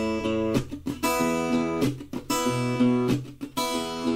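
Background music: an acoustic guitar strumming chords, each strum ringing on.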